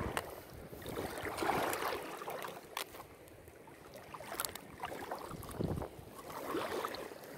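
Water sloshing and splashing around a mesh keep net holding caught fish as it is handled at the surface, with two or three sharp clicks.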